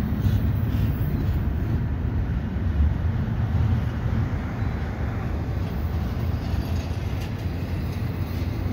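Double-stack intermodal freight train rolling past: a steady low rumble of its steel wheels on the rails.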